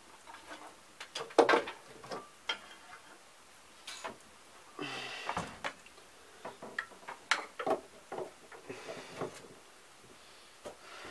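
Scattered clicks, knocks and clatter of tools and objects being handled at a workbench, with a short scraping sound about five seconds in. No motor is running.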